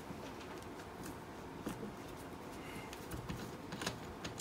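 A few faint clicks and light taps of plastic and circuit board as the Hioki DT4282 multimeter's board and housing are handled and worked apart.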